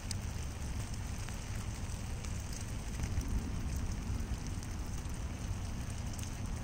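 Steady rain falling on a lake and on leaf litter, with scattered sharp drop ticks over a low rumble.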